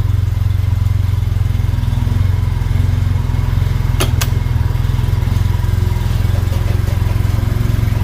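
Engine idling steadily with a fine, even pulse, with two sharp clicks close together about four seconds in.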